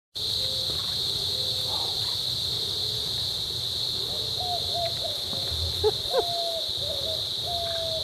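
Steady high-pitched chorus of insects. From about four seconds in, a series of short, flat, hoot-like calls comes over it, with two sharper sudden calls at about six seconds.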